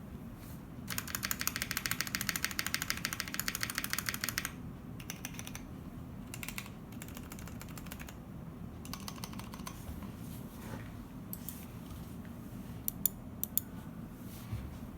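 Mechanical keyboard with stock Holy Panda tactile switches in an acrylic case being typed on. A fast, continuous run of keystrokes lasts about three and a half seconds. It is followed by shorter bursts of typing and a few single louder keystrokes near the end.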